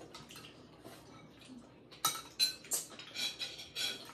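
Cutlery clinking against plates and dishes at a meal: soft scrapes and taps at first, then a quick run of about half a dozen sharp clinks in the second half.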